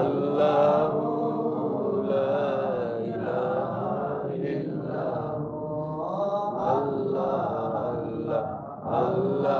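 Islamic devotional chanting of durood and zikr: voices in long, drawn-out melodic phrases with held notes and a short break for breath near the end.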